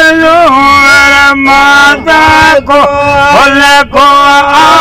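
A man singing unaccompanied into a microphone: long, loud held notes that bend in pitch, broken by short breaths, in a chanting folk style.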